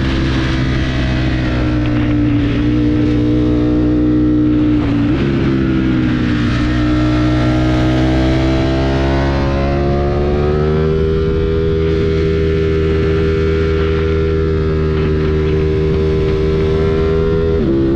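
Motorcycle engine heard from onboard while riding: its pitch dips about five seconds in, climbs steadily over the next several seconds, holds level, then drops suddenly near the end.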